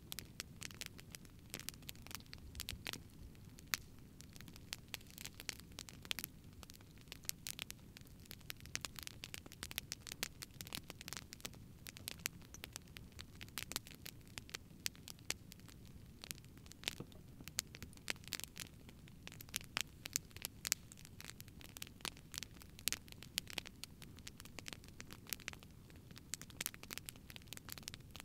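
Wood campfire burning, crackling with irregular sharp pops, several a second, over a low steady rush of flame.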